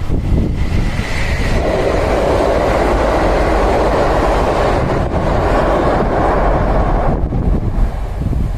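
A train passing, its rushing wheel and running noise building about half a second in and cutting off suddenly about seven seconds in, with wind buffeting the microphone underneath.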